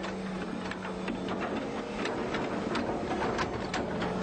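Excavator working: the engine runs with a steady hum while the bucket and linkage give irregular clanks and knocks as it digs.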